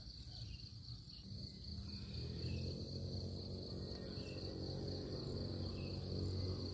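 Insects, likely crickets, trill in a steady high continuous tone, with a few faint bird chirps. From about a second in, a low droning hum comes in and grows louder, becoming the loudest sound.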